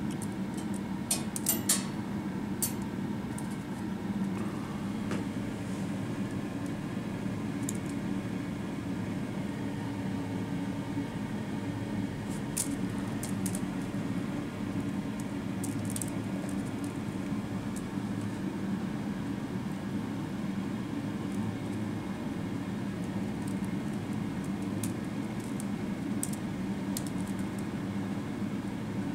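Steady low room hum with scattered light clicks and taps from a cat batting at a feather wand toy, a cluster of them in the first couple of seconds and a few more later.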